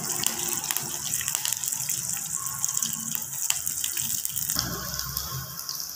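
Hot oil sizzling and crackling in a clay pot as chopped green chillies, garlic and onion are dropped in for tempering. The sizzle shifts in tone about four and a half seconds in.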